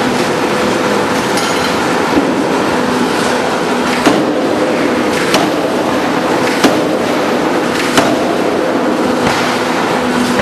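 4-ton double-arm hydraulic open die forging hammer striking, with five sharp blows about 1.3 seconds apart over a loud, steady mechanical din with a low hum.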